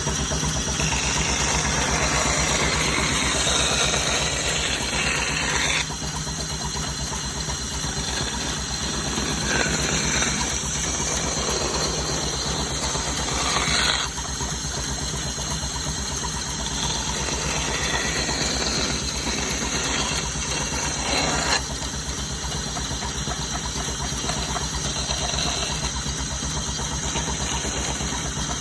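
A woodworking machine motor running steadily with a fast low pulsing hum. The sound changes abruptly three times.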